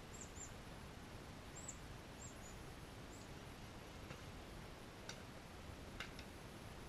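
Faint, short, high-pitched chirps of a small bird, about seven in the first three seconds, over a steady low hiss. A few faint sharp clicks follow in the second half.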